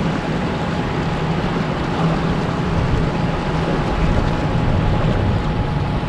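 Steady rush of turbulent river water flowing fast below a dam.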